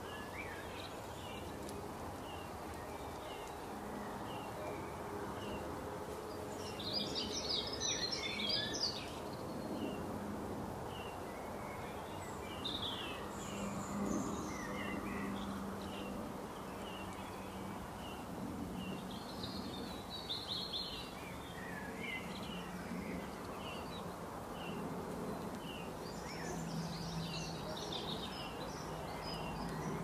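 Garden songbirds chirping and twittering over a steady background hiss: a run of short chirps, about one or two a second, with busier bursts of twittering about seven seconds in, around twenty seconds and near the end.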